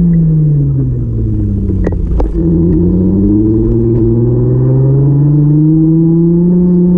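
Vehicle engine whose note falls as it slows, with two sharp clicks about two seconds in, then climbs steadily as it speeds up again.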